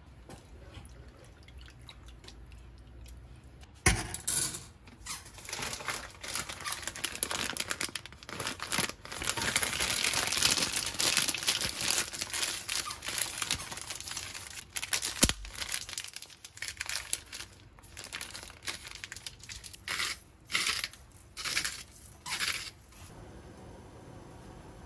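Plastic spaghetti packet being torn open and crinkled in the hand. It starts with a sharp click about four seconds in, runs as a dense crackling rustle that is loudest in the middle, and ends with a few short crinkles.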